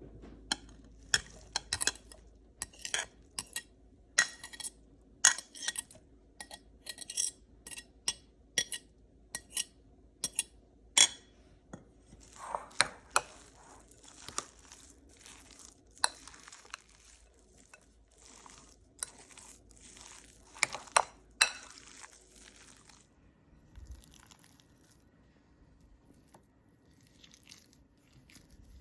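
Dishes and cutlery clinking and tapping in many quick, sharp knocks, then a stretch of scraping and crunching; it goes quiet for the last few seconds.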